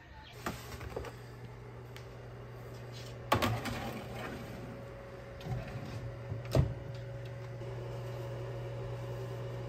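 Countertop convection toaster oven running with a steady hum. There is a metal clunk a little after three seconds as the brisket pan goes onto the rack, and a sharper knock about six and a half seconds in.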